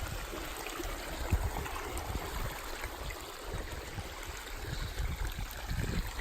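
Irrigation canal water flowing and trickling steadily, with irregular low thumps underneath.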